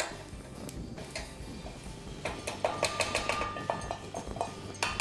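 Wooden spatula scraping and tapping roasted poppy seeds out of a small stainless-steel kadai into a bowl. The clinks and knocks come in clusters around the middle and near the end, with the steel pan ringing briefly.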